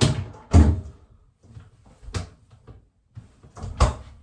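A hinged cupboard door or bin lid being opened and shut, four knocks in all: two close together at the start, one about two seconds in, and one near the end.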